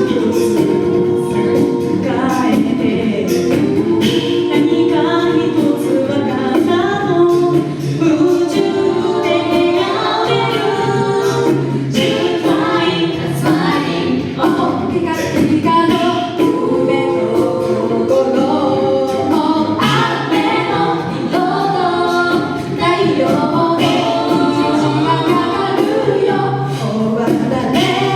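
Live a cappella vocal group singing a song in close harmony, with a low sustained bass voice underneath the melody and repeated sharp clicks keeping a beat.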